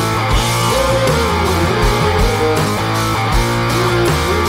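Background rock music with a guitar melody over a stepping bass line.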